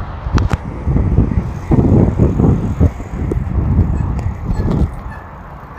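Wind buffeting a phone microphone during a bicycle ride: an uneven, gusting rumble that swells in the middle and eases off near the end, with two sharp clicks near the start.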